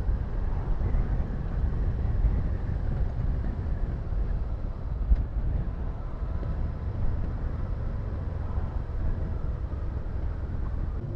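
Motorcycle riding: wind rushing over the microphone, with the steady running of a Honda Deauville's V-twin engine underneath.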